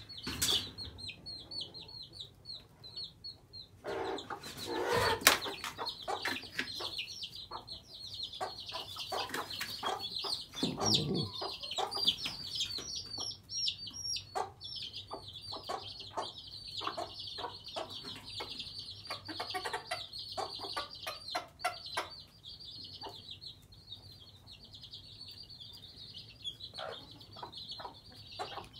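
Silkie chicks peeping continuously in quick, high-pitched chirps, with Silkie mother hens clucking over them every so often.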